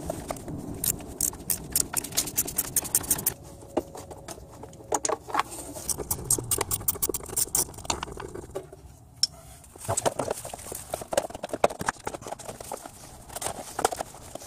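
Hand socket ratchet clicking in quick runs of ticks, with the tapping of metal tools, as the bolts of the timing belt cover are worked loose.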